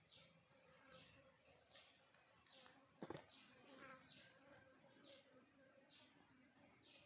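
Faint bird call repeating about every three-quarters of a second, each call short and falling in pitch, with a single sharp click about three seconds in.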